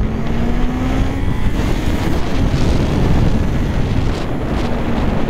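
Honda CB650R's 649 cc four-cylinder engine pulling hard from low revs, its pitch rising steadily for about the first second. Then loud wind rush on the onboard microphone takes over as the bike speeds up, with the engine's tone still under it.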